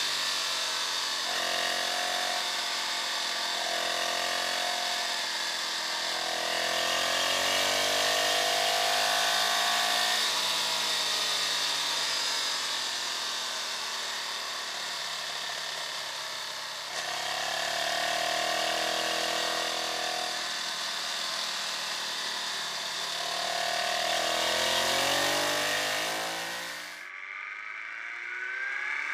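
Onboard sound of a sport motorcycle at speed on a race track: the engine's pitch climbing and dropping with throttle and gear changes under heavy wind rush. Near the end the wind noise falls away abruptly.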